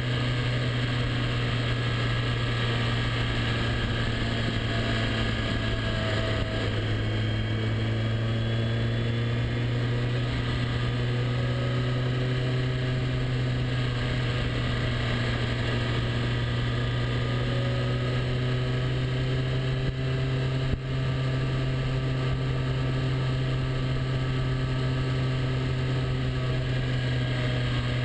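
Motorcycle engine running at road speed, recorded from a camera mounted on the bike, with wind noise. The engine note rises and falls slowly.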